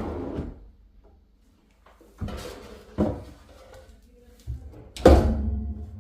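Wooden cabinet doors and drawers being opened and shut: a knock about two seconds in, another about a second later, and a louder one near the end. A low steady hum comes in just before the last knock.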